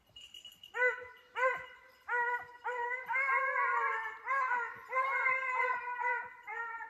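Hunting hounds baying on a hare's track, a run of repeated ringing bawls that starts about a second in, with calls from more than one dog overlapping in the middle.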